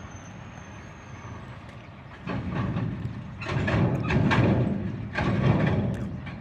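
A road vehicle passing by: steady traffic hum, then a loud rush that builds about two seconds in and dies away near the end.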